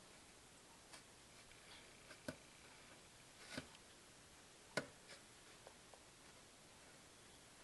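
Near silence with a few light clicks and taps, about a second apart, from a small plastic measuring scoop and plastic seed tray being handled.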